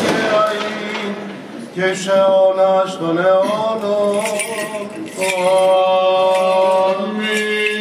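A Greek Orthodox priest chants a Byzantine hymn into the church's microphone in long, held melodic phrases. A light metallic jingling, the bells of a swinging censer, sounds under the chant.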